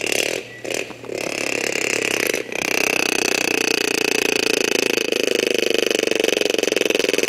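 Beyblade spinning top with a metal wheel whirring on a bare wooden table, its tip scraping the wood. It sounds uneven at first, then from about two and a half seconds in settles into a steady, fast buzzing whir.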